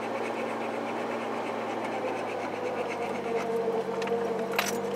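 1988 Chevy S10 pickup's 2.8 V6 running steadily while the truck creeps over a dirt track, heard from inside the cab with light body rattles. The engine note rises a little near the end, and there is a sharp knock about four and a half seconds in.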